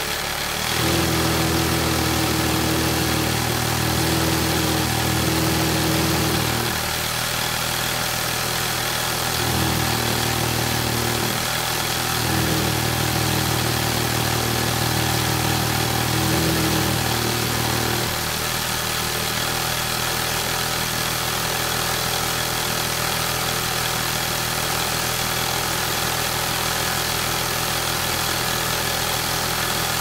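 Industrial sewing machine running continuously. Its low machine hum comes and goes in runs of several seconds, over a constant mechanical whir.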